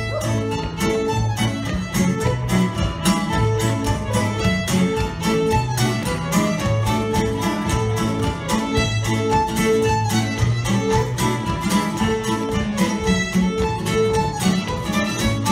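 Scottish traditional fiddle tune played on fiddle with acoustic guitar accompaniment. The fiddle carries the melody over a steady strummed guitar rhythm.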